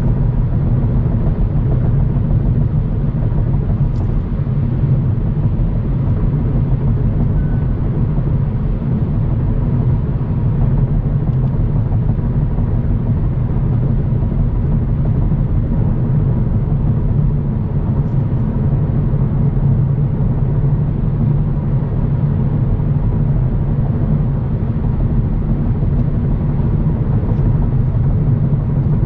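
Car cruising at highway speed: a steady low rumble of road and tyre noise with engine drone, unchanging throughout.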